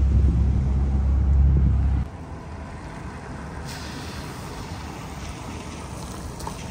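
Street traffic: a heavy vehicle's engine rumbles close by for the first two seconds, then the sound cuts to quieter, steady traffic noise with a hiss about four seconds in.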